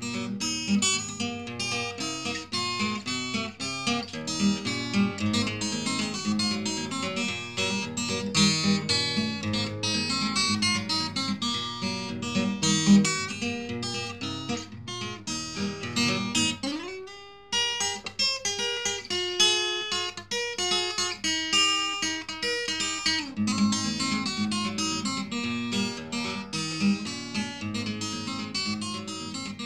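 Background music: acoustic guitar played with quick plucked notes, with a short break a little past halfway where a sliding note leads back in.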